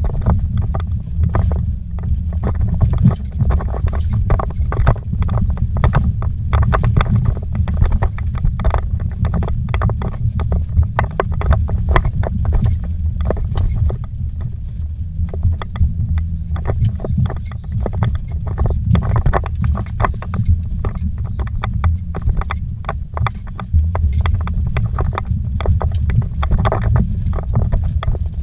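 Vehicle driving fast over a rocky dirt trail, heard from inside the cabin: a constant low rumble with rapid, irregular knocks and rattles from the rough ground.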